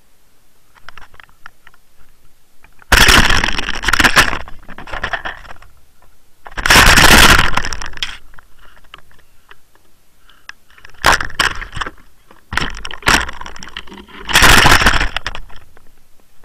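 Loud bursts of crackling, knocking and scraping from a waterproof action camera clipped to the fishing line as it is jostled against a hooked pike and the landing-net mesh during netting. The bursts come and go every few seconds, with the biggest about three, seven and fifteen seconds in.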